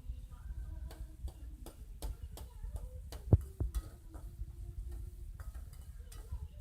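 Light clicks and taps of kitchen utensils, with one sharp knock about halfway through.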